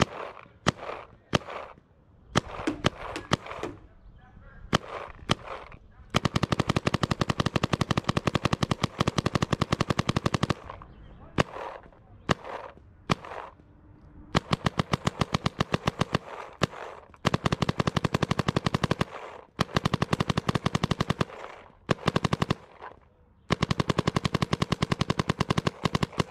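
Adrenalin Angel LCD electronic paintball marker firing: a few scattered single shots, then long rapid strings of shots broken by short pauses.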